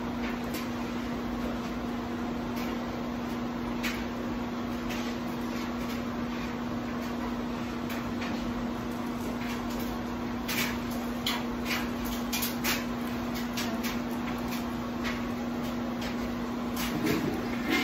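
Steady low electrical hum over even room hiss, with a scattering of small clicks and rustles about ten to thirteen seconds in from hands working the hair.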